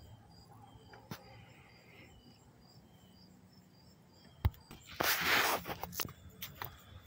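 Faint outdoor background with soft, evenly repeating high chirps. A sharp click comes about four and a half seconds in, followed by a second or so of loud rustling noise and a few smaller clicks.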